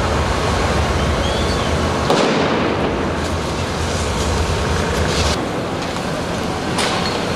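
A single loud bang about two seconds in, with shorter sharp cracks later on. Underneath runs the steady rushing noise of a police water cannon jet spraying across the street.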